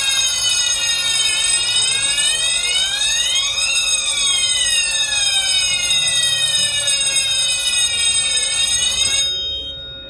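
Electronic fire alarm sounders wailing during a test of the control panel: overlapping tones sweep up and down, over a few steady high tones. The wail stops about nine seconds in.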